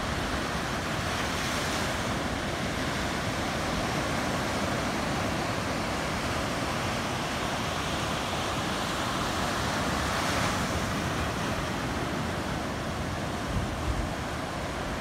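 Ocean surf breaking and washing up the beach: a steady rush of whitewater that swells louder as waves break, about two seconds in and again around ten seconds in.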